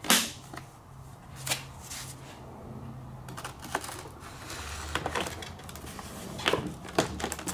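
Foam RC airplane wing being slid over its spar and pressed onto the fuselage, making scattered clicks, taps and rubbing of foam and plastic. There is a sharp knock just after the start and a cluster of clicks near the end as the snug wing is worked into place.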